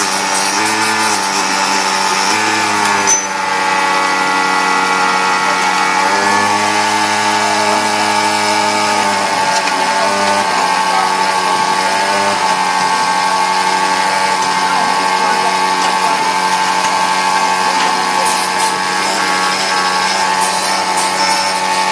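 Automatic key-cutting machine running: a steady motor whine with a strong high tone, while lower tones step and shift in pitch as the machine works through its cycle. A single sharp click about three seconds in.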